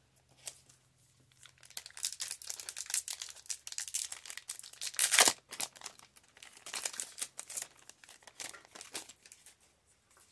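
Flesh and Blood booster pack's foil wrapper being torn open and crinkled in the hands, a run of sharp crackles with the loudest about five seconds in.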